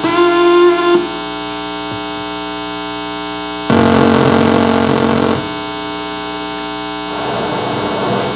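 Electronic noise music played on cabled electronic devices: a steady buzzing hum with many overtones, a held tone that stops about a second in, then a louder buzz from about three and a half to five and a half seconds in, and a rougher, noisier texture building near the end.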